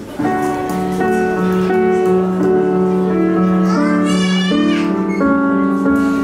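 Roland digital piano played: a melody over held chords, notes changing every half second or so. About four seconds in, a brief rising, wavering high-pitched sound rises above the piano.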